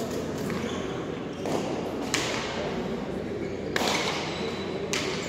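Hard pelota ball struck by bare hand and slamming off the frontón wall during a rally: four sharp cracks with a short echo from the hall, over a low crowd murmur.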